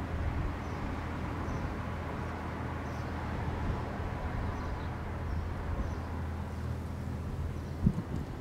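Freight train of tank cars rolling past at steady speed: a continuous low rumble of steel wheels on the rails, with a sharp clunk about 8 seconds in.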